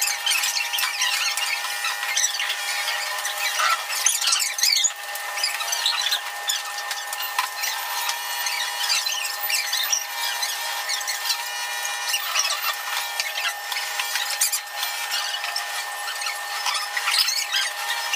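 Spoons and cutlery clinking and scraping on plates and dishes during a meal, in many short, sharp, scattered taps, over a steady high-pitched whine in the recording.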